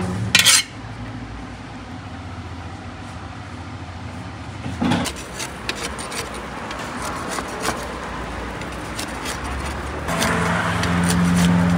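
Metal tools scraping and clicking against the clay wall of a street tandoor as baked samosas are pried off into a wire skimmer, over steady street background noise. A short loud rush of noise comes about half a second in, and a vehicle engine's steady hum comes in near the end.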